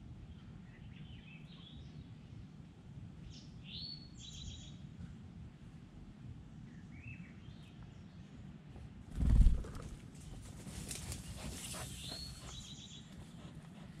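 Songbirds chirping and calling in short, sweeping notes, off and on throughout. About nine seconds in comes a sudden loud low thump, the loudest sound, followed by a few seconds of rustling hiss.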